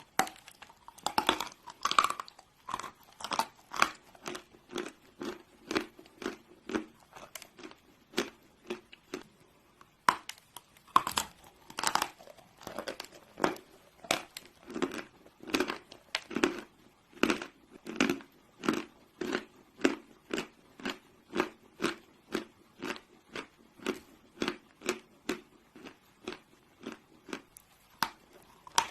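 Chalk being bitten and chewed close to the microphone. Sharp crunching bites come near the start and again about ten seconds in, and each is followed by steady chewing crunches at about two a second.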